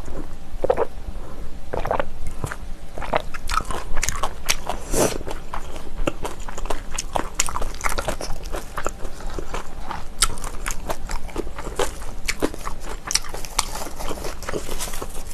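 Close-miked chewing of crunchy kimchi: a steady run of irregular crisp crunches and wet mouth clicks.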